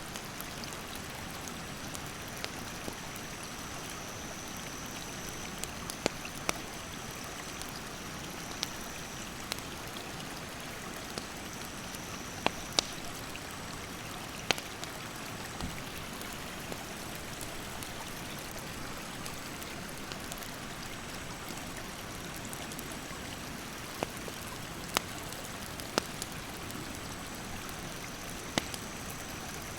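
Rushing mountain stream with a steady flow, and sharp, irregular pops and crackles from a burning wood campfire every second or two. A faint high insect buzz comes and goes.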